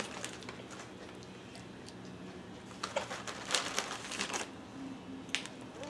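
Snack packaging and a small plastic dip cup being handled, giving a few scattered crinkles and clicks.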